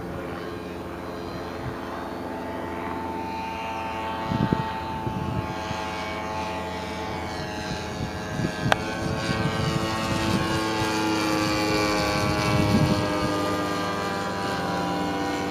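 Zenoah G-45 single-cylinder two-stroke petrol engine of a large-scale radio-controlled biplane flying overhead. It gives a steady propeller drone whose pitch drifts slightly, and it grows louder as the plane comes closer late on.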